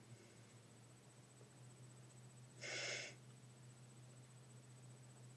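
Near silence over a steady low hum, broken about halfway through by one short huff of breath: a laughing exhale through the nose.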